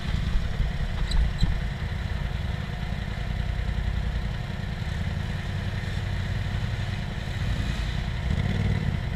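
ATV engine idling steadily, its pitch rising briefly about eight seconds in.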